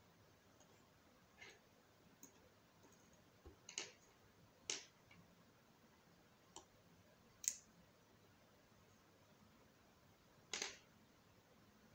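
Small sharp clicks and taps of hand tools on the opened phone's plastic frame and parts, about seven at uneven intervals, the loudest around the middle and near the end.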